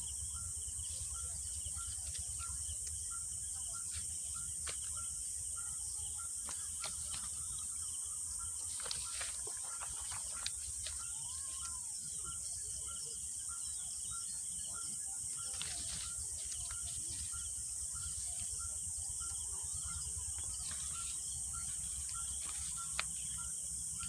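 A steady, high-pitched chorus of insects, with a short call repeating about twice a second and a low rumble underneath. A few faint clicks break in now and then.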